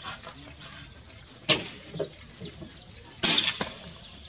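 A spring-piston air rifle, the Cometa New Fenix in .177, fires once about three seconds in: a short, loud crack with a brief ringing tail. A sharp click comes about a second and a half in, and birds chirp with short falling calls over a steady high whine.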